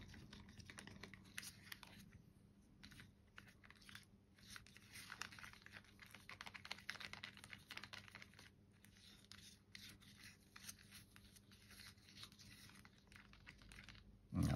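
Faint, irregular scraping and squishing of a stirring stick working thick paint around a small plastic cup, as pigment paste is mixed into a wood-glaze medium.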